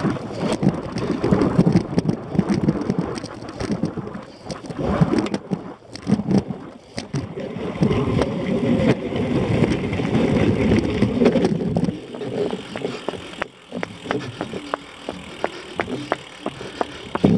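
A cyclocross bike rumbling and rattling over rough ground, heard through a camera on its handlebars. Its tyres and frame make an irregular noise. In the last few seconds the rumble drops and gives way to a run of sharp clicks and knocks.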